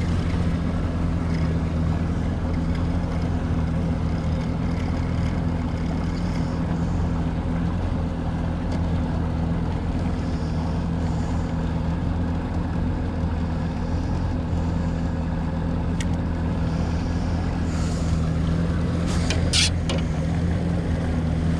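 Boat's outboard motor running steadily at trolling speed, a constant low hum. A few sharp clicks come near the end.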